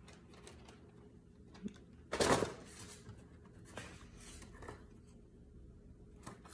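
Quiet room with one brief rustle about two seconds in and a few faint clicks.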